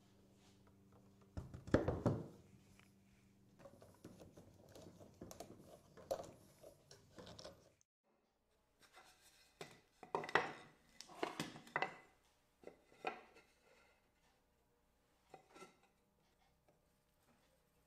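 Wooden workpieces being handled on a workbench: a solid knock about two seconds in as the frame is moved, soft rubbing and shuffling, then after a short silence a run of light wooden knocks and taps as box parts are fitted together.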